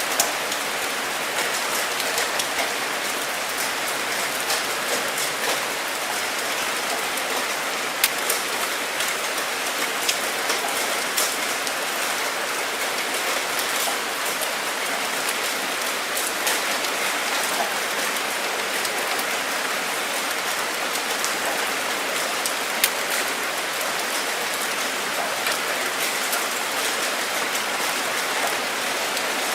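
Steady rain falling: a dense, even hiss with scattered individual drops ticking sharply. A few drops stand out louder, about 8, 10 and 23 seconds in.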